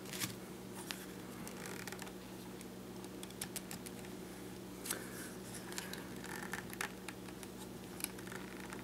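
Scattered small plastic clicks and scrapes as the DJI Phantom 2 Vision's camera and gimbal assembly is handled and worked loose, the sharpest clicks near the start, about five seconds in and about eight seconds in, over a steady low hum.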